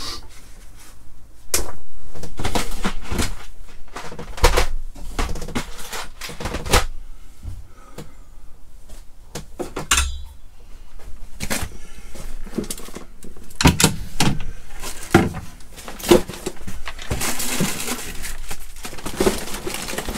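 Items being lifted out of overhead wall lockers and moved about: a string of irregular sharp knocks and clunks of hard objects against the cupboard shelves and doors, with rustling near the end.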